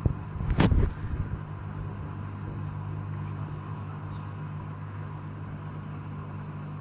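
Candy GO DF800 washing machine's motor running with a steady hum while the drum is held back by a heavy suds lock during the spin. There is a brief knock just under a second in.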